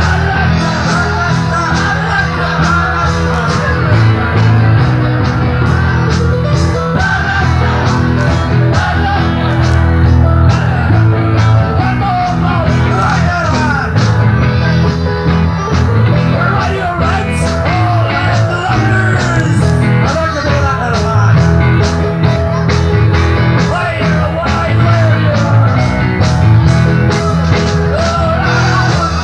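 Live rock band playing at full volume: a man singing over electric guitar, bass guitar and a steady drum beat.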